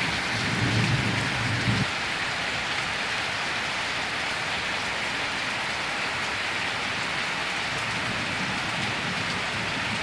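Heavy rain pouring down steadily in a tropical thunderstorm downpour. A brief low rumble swells and fades in the first two seconds.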